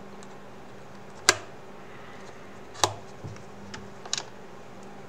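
Small plastic parts clicking as a 3D-printed VR headset hinge and its hinge pin are handled: two sharp clicks about a second and a half apart, then a few softer ticks and taps.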